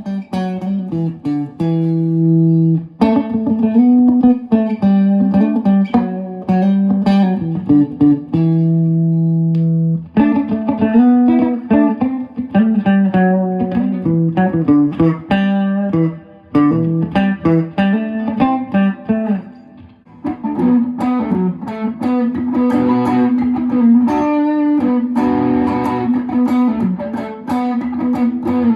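Electric guitar playing melodic phrases of single notes and chords, with short pauses between them. From about 20 seconds in, the tone turns denser and brighter.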